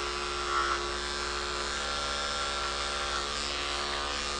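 Electric pet grooming clippers with a number 10 blade running with a steady hum while clipping the short hair under an Airedale terrier's ear.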